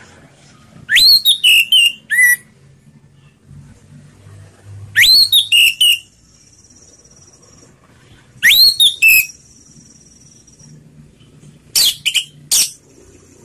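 Orange-headed thrush (anis merah) singing its slow, full 'ngeplong' song. Four short phrases come a few seconds apart, each opening with a quick rising whistle and ending in a few clear, sharp notes.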